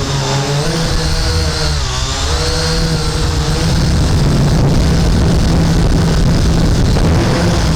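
Syma X8C quadcopter's electric motors and propellers running loudly with wind noise, heard close up. Their pitch wavers up and down in the first few seconds, then holds steadier and grows a little louder.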